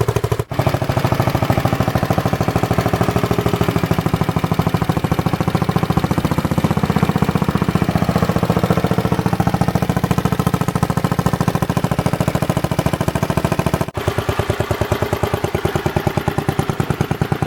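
Briggs & Stratton 23D 9 hp single-cylinder engine of a Magna Trac garden tractor running steadily with a fast, even firing beat, now getting fuel after its stuck, gummed-up carburetor float needle was cleaned. The pitch shifts a little around the middle, and the sound drops out very briefly twice.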